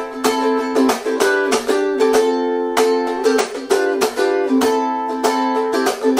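Ukulele strummed in a quick 16-beat pattern with percussive muted chops between the chords, cycling through F, G7, Am and Em7, then F, G7, Am and C.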